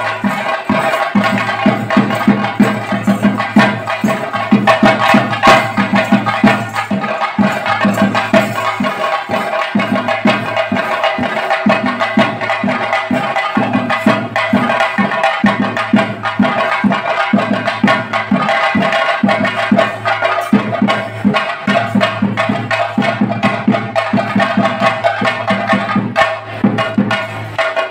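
Chenda drums of a theyyam ensemble beaten in fast, continuous rolls, with a steady ringing tone held above the drumming.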